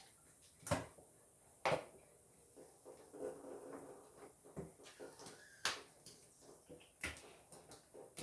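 A few sharp knocks and clicks, about five spread out with quiet between them, from objects being handled at a kitchen sink while acid cleaner is applied to a limescale-crusted tap.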